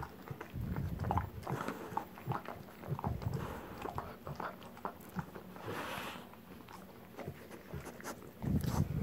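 A Rottweiler gnawing and mouthing a toy football, trying to get a treat out of it: irregular clicks and knocks of teeth on the ball, with a louder thump near the end.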